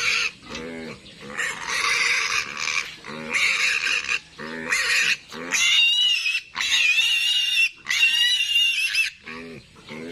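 Piglet squealing, about five long, loud, high screams of about a second each, broken by short low grunts, as a piglet does when caught and held for castration.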